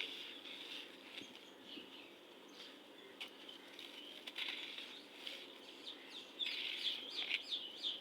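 Gritty red sand crumbling, a continuous crackle of many small grainy bits breaking apart. It gets busier and louder near the end.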